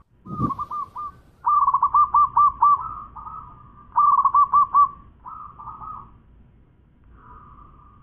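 Zebra dove (perkutut) cooing: three quick runs of short, rapidly repeated coo notes, then a fainter drawn-out note near the end. A brief low thump comes just after the start.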